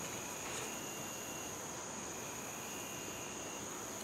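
Insects trilling steadily in high, thin tones, with a second, lower trill that starts and stops twice.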